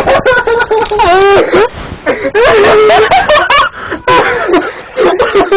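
Young people laughing and shrieking loudly in high-pitched fits, with some wordless voices mixed in.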